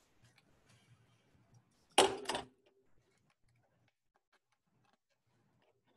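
Faint scattered clicks and scratches of toothpicks being poked through a cardboard paper-towel tube, broken about two seconds in by a loud double bump.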